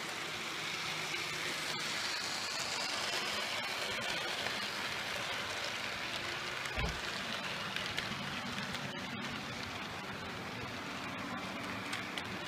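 Model Class 50 diesel locomotive and its coaches running past on model railway track: a steady rattle of wheels on the rails with a few light clicks. There is a single low thump about seven seconds in.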